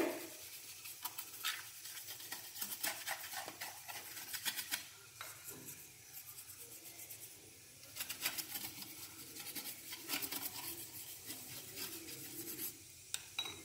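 Brush scrubbing a baking soda and vinegar paste onto the plastic body of a Prestige mixer grinder, in quick irregular scratchy strokes that pause for a few seconds midway.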